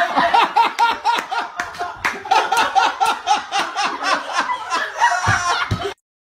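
Loud, continuous laughter: a rapid run of short ha-ha pulses, several a second, that cuts off suddenly near the end.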